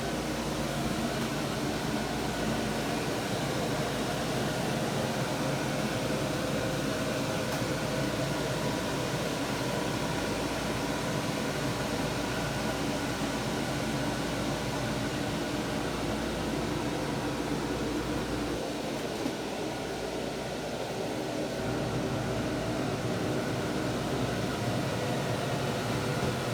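Steady hum of onboard machinery, with several faint steady tones, easing slightly about two-thirds of the way through.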